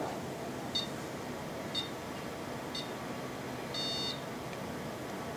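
The ERG colour dome's warning chime: three short high beeps about a second apart, then one longer beep, signalling that a flash of light is about to fire.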